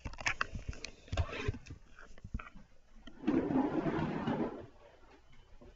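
Handling noise from a laptop being picked up and carried: scattered knocks and clicks, then a louder rustling scrape lasting about a second and a half.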